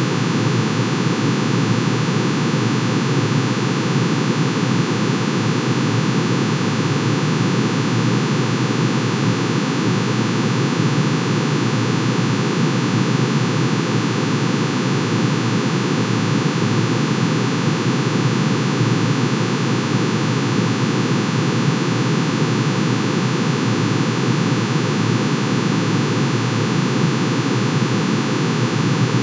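Synthesized sound of manganese's atomic emission spectrum: many sine tones, one for each spectral line, summed into a dense, steady, unchanging drone that sounds like a noisy hiss with faint held tones in it.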